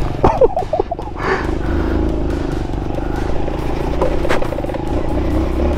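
Aveta RangerMax Explorer 130 motorcycle engine running steadily while riding over a rough dirt trail, with short knocks and rattles from the bumps.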